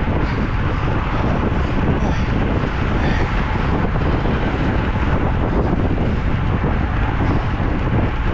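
Steady wind buffeting the microphone, a loud, even rush heaviest in the low end.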